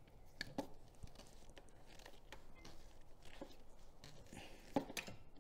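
Pliers working a small metal hose clamp off a rubber hose: faint scattered clicks and scrapes of metal on metal, with a few sharper clicks near the start and again near the end.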